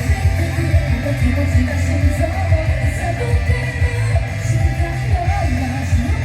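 Rock song playing, with a heavy, steady bass beat and a singer.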